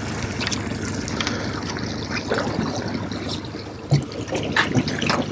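Water rushing and splashing past the boat's hull and in the outboards' wash, with a few sharp clicks and knocks of fishing gear being handled near the end.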